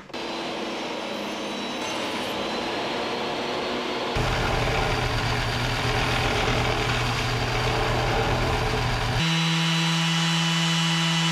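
Workshop power tools running in three stretches that change abruptly about four and nine seconds in. The middle stretch is a bench-top belt sander with a deeper hum, and the last is a small handheld Makita power tool with a steady whine.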